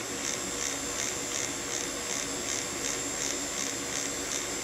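Small fischertechnik electric motor on a monorail carriage running steadily at full power, with a high whine that pulses about three times a second. The carriage has not yet started moving; the builder suspects it needs more weight for grip.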